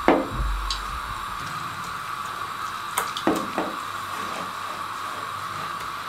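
Water poured from a steel mug into gram flour and the wet batter squished by hand, with a few soft knocks of hand and mug against the bowl, over a steady background hum.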